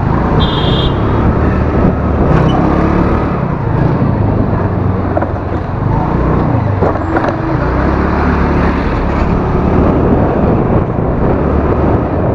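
TVS scooter's small engine running steadily while riding, with a constant low rumble of wind and road noise. A short high horn beep sounds about half a second in.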